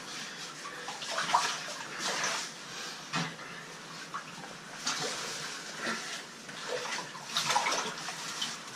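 Water sloshing and splashing in uneven bursts as a caver moves through a water-filled cave crawlway.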